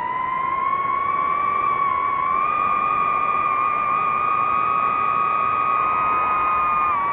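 DJI FPV drone's motors and propellers whining in flight: a steady high whine over a rushing noise, its pitch climbing a little about two seconds in and dropping near the end.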